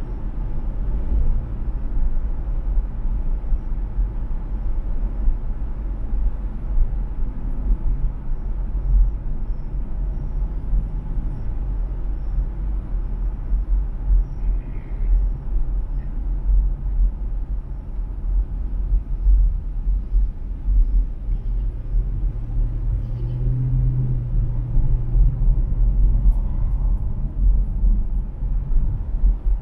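Steady low rumble of a car being driven, heard from inside the cabin: road and engine noise with no other distinct events.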